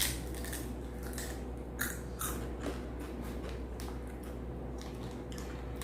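A person chewing and crunching potato chips dusted with chili powder: a run of crisp crunches at an uneven pace.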